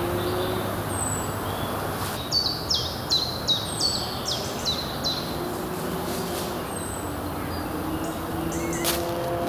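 A small songbird sings one phrase of about eight quick, downward-sweeping high notes, with a few thin high calls from other birds. Under it runs a steady low background rumble.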